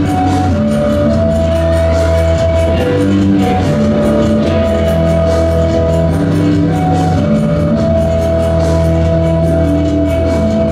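Dance-routine music played over a PA: a steady beat under long held melody notes and a sustained deep bass.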